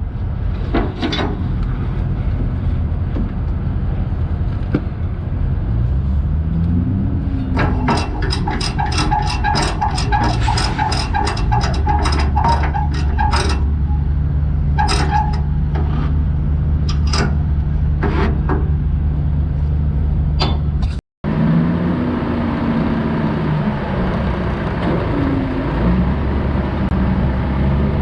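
Log truck's diesel engine running steadily, rising in pitch about six seconds in, with a rapid run of clicks for about five seconds in the middle. The sound drops out for an instant a little after twenty seconds and picks up again with the engine still running.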